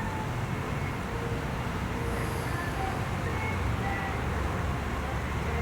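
Steady low rumble of road traffic, with a few faint short tones scattered through it.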